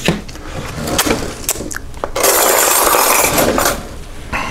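Kitchen handling sounds: a few sharp clinks and knocks of utensils and dishes on the counter in the first two seconds. Then a loud hissing rush lasting about a second and a half, and one more knock near the end.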